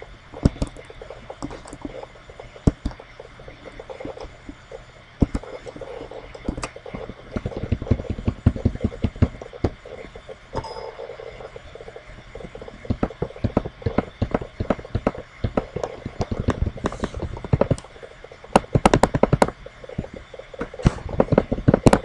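Computer keyboard keys clicking as text is typed and edited, in quick runs of keystrokes with scattered single clicks between.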